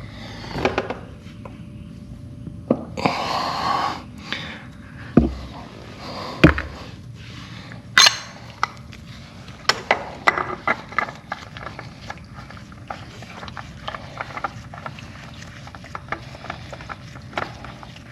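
Hands fitting a new oil filter and its cover onto an ATV engine. Scattered metallic clicks and knocks of parts and tools, with a short rustling noise about three seconds in and two duller thumps around five and six seconds in.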